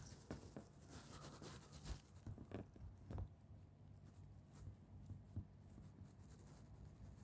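Faint crackling and scratching of a hornet's mandibles working paper pulp as it builds its nest, quick irregular clicks that thin out after about three seconds.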